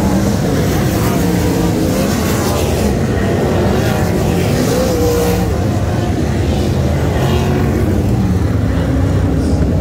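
Sprintcar V8 engines running on a dirt speedway track: a loud, steady engine din with some pitch changes as cars pass.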